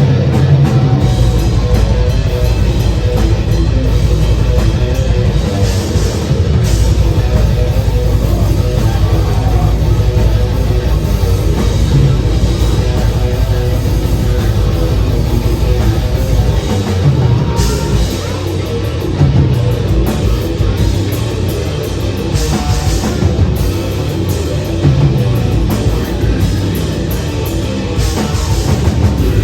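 Death metal band playing live: distorted guitars, bass and drum kit in a loud, dense mix.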